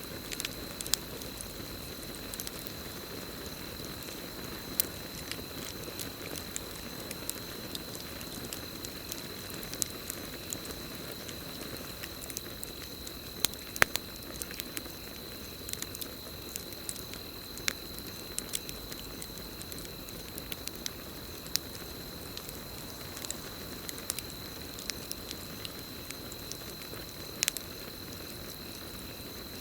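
Campfire burning, with irregular sharp crackles and pops over a steady low rush of flame. A continuous high-pitched cricket trill runs underneath.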